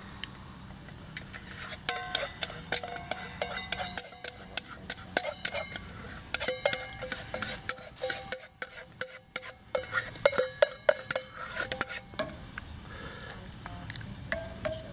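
Serving spoon scraping and knocking against a stainless steel saucepan as a thick soup-and-milk mixture is scraped out of it; repeated clinks, many with a short metallic ring, easing off near the end.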